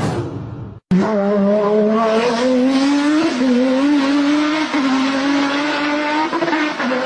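Combustion engine held at high revs. A short first clip cuts off under a second in; after a brief gap comes a loud, steady engine note that climbs slowly in pitch and wavers a little.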